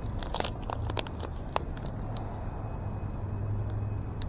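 Tire sealant being squeezed from a plastic bottle into an inner tube through the valve stem, giving scattered light clicks and crackles, most of them in the first two seconds. A low steady hum runs underneath.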